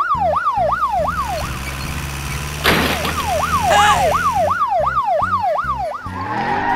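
Police siren yelping, a fast rising and falling wail about three times a second. It breaks off after about a second and a half, and starts again about three seconds in. A short whoosh falls in the gap.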